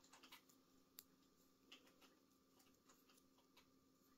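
Faint, irregular clicks and taps of circular knitting needles as stitches are knit, a few per second, over quiet room tone.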